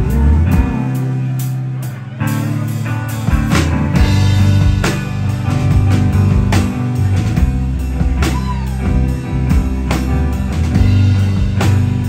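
Live rock band, with electric guitar, bass guitar and drum kit, playing an instrumental stretch. The bass drops out briefly about a second in, then the full band crashes back in with steady drum hits.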